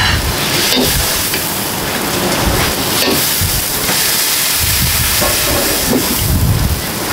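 Wok cooking over a high-pressure gas burner: a loud, steady roar and hiss with food sizzling in the wok, and low rumbling that swells and fades every second or two.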